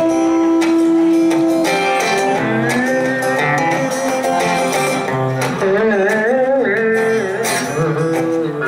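Electric guitars playing live: a lead line holds a long note near the start, then plays bent notes with vibrato over the second guitar's backing.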